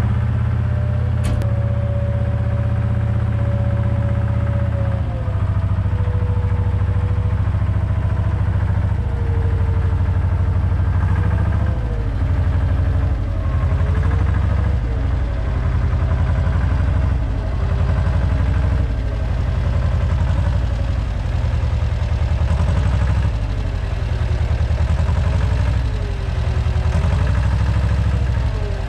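Zettelmayer ZL 401 Serie B wheel loader's diesel engine running close by as the machine carries and sets down a stack of square hay bales on its bale fork. The engine is steady at first; from about halfway on its revs rise and fall again and again as it works.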